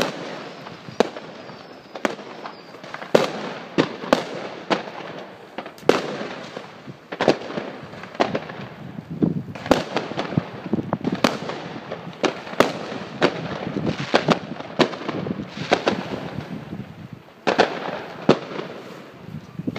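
New Year's Eve fireworks and firecrackers going off: dozens of sharp bangs at irregular intervals, some close together, with a continuous crackle of distant fireworks in between.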